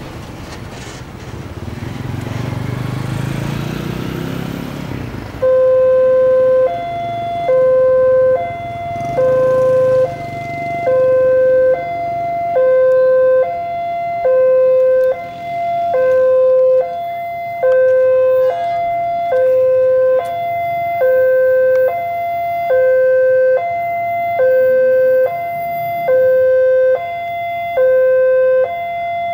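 Railway level-crossing warning bell (genta) starting about five seconds in: an electronic two-note chime, a lower note then a higher one, repeating roughly every 1.7 seconds, the signal that a train is approaching. Before it comes a train's low rumble.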